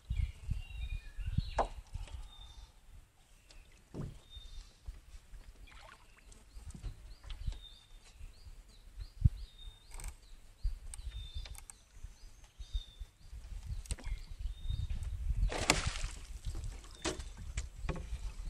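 Small boat on a river: low wind rumble with occasional knocks of the bamboo rod and the angler against the hull, and a bird calling over and over in short high notes. About fifteen seconds in comes a louder splashy rush as the hooked fish is brought up out of the water.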